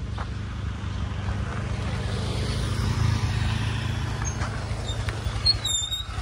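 Small motor scooter engines running at riding speed on a dirt road, a pulsing low hum that swells about halfway through. A brief high chirp near the end.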